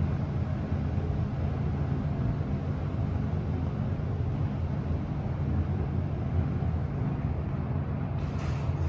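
Schindler passenger lift car travelling downward between floors: a steady low hum and rumble from the moving car. Near the end a few short, brighter sounds come in as the car nears the ground floor.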